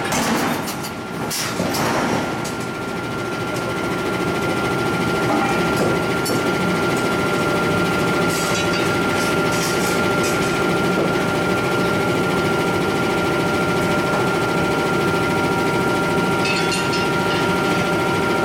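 Steady drone of heavy forge machinery running, with a thin constant whine over it. A few sharp metallic clanks come in the first couple of seconds and again near the end, as steel tools strike the hot ring and die.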